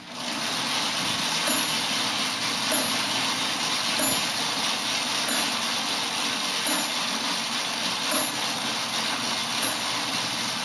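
Moving-model mechanism of an antique coin-op arcade machine running: a steady whir from its small electric motor and gearing, with a light click every second or so from its cam or bell linkage. The whir starts up suddenly at the very beginning.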